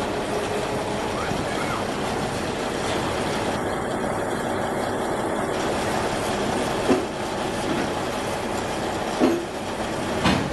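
Diesel engines of crawler sideboom tractors running steadily while they hold and lift a derailed hopper car, with three short sharp knocks in the second half.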